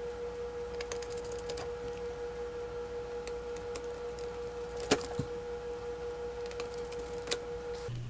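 Small scattered clicks of a screwdriver and screws being worked into a laptop screen's mounts, one sharper click about five seconds in. Under them is a steady humming tone that cuts off suddenly near the end.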